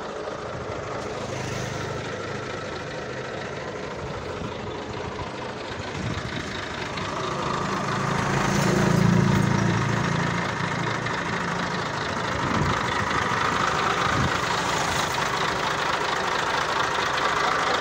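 Massey Ferguson 260 tractor's diesel engine idling steadily, swelling louder for a couple of seconds about eight seconds in.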